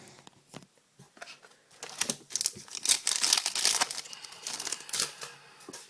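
Foil wrapper of a hockey trading card pack being torn open and crinkled by hand. It starts about two seconds in as a dense crackle of small clicks and lasts about three seconds.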